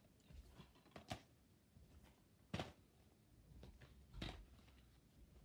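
Plastic DVD and Blu-ray cases knocking and clicking against each other as a stack of them is handled: a few faint, short clacks about a second and a half apart.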